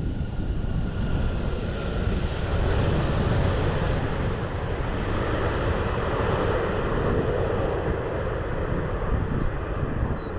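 Jet aircraft engines, a steady rush that swells in the middle and eases off, over low wind rumble on the microphone.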